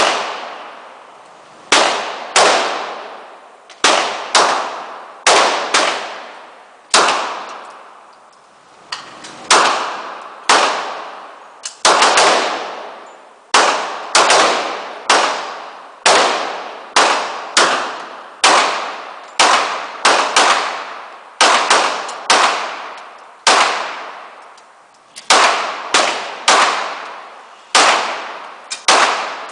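9mm handgun fired shot after shot, about thirty rounds at an uneven pace, mostly around one a second with a few quick doubles. Each shot is a sharp crack followed by a long ringing echo.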